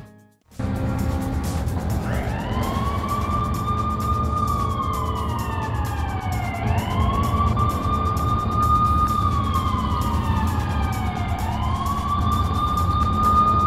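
Cartoon police car siren wailing. Each cycle rises quickly, holds a high note, then slides slowly down, repeating about every four and a half seconds. It comes in about two seconds in, over a steady low rumble, after a moment of silence at the very start.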